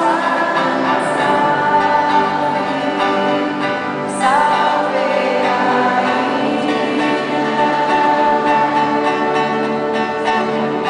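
A choir of voices singing a slow hymn in long, held notes over instrumental accompaniment.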